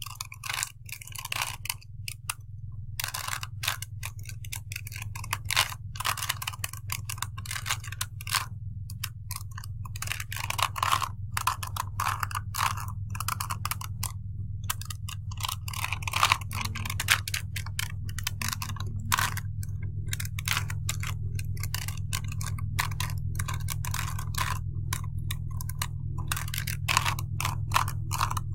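Small plastic Rubik's Cube being twisted by hand: quick, irregular clicks and scrapes as its layers turn, over a steady low hum.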